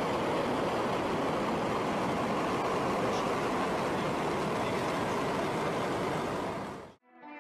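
Soyuz-2.1b rocket's engines at liftoff: a loud, steady, even rushing roar that cuts off suddenly near the end.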